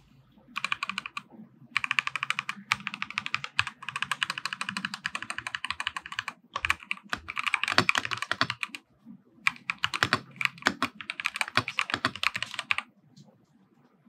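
Fast typing on an Epomaker TH80-X mechanical keyboard fitted with stock, unlubricated Gateron Pro Yellow linear switches: a dense run of key clacks in several bursts with short pauses, stopping about a second before the end.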